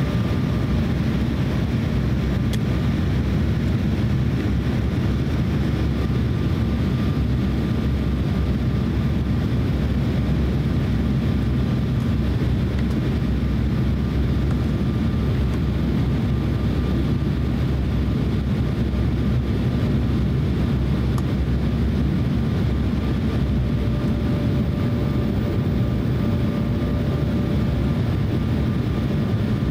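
Steady cabin noise inside an Embraer E170 airliner on final approach, heard from a window seat over the wing. It is the even rumble of its GE CF34 turbofans and the airflow, with a faint steady whine running through it.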